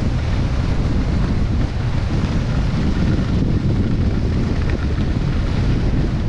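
Wind buffeting the microphone: a loud, steady low noise with no other sound standing out.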